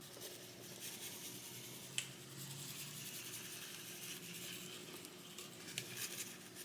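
Quiet kitchen handling at a slow cooker: a soft, steady scraping rustle, with one sharp click about two seconds in and a few light clicks near the end.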